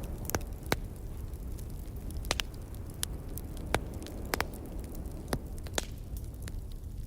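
Wood fire crackling: sharp pops at irregular intervals, a few louder than the rest, over a low steady rumble.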